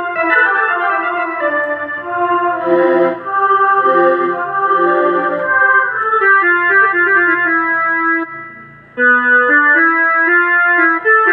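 Rockster RS41IN electronic keyboard playing a melody in one of its preset tones; the notes die away about eight seconds in and a new phrase starts about a second later.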